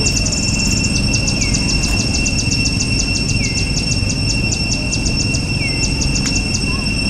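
Forest birds and insects: a short downward-sliding bird call repeats about every two seconds over rapid high ticking trills and a steady high-pitched insect drone, with a steady low rumble beneath.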